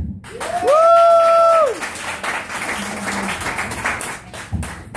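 Small audience applauding a comic onto the stage, with one person's long whoop rising, holding and falling away in the first two seconds.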